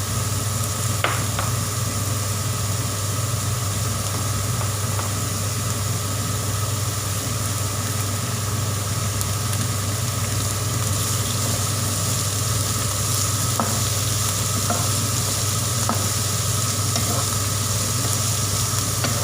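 Chopped vegetables sizzling in hot oil in a wok as they are stir-fried, with a few sharp clicks of the spatula against the pan. A steady low hum runs underneath.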